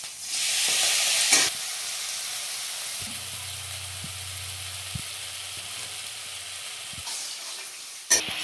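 Garlic and cumin sizzling in hot oil, the hiss jumping louder about half a second in, then running steadily while being stirred, with a few short taps of the spatula on the pan. A low hum sounds for a few seconds in the middle.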